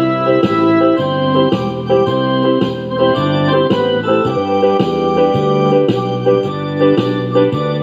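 Background music played on an organ-like electronic keyboard, with chords changing about twice a second.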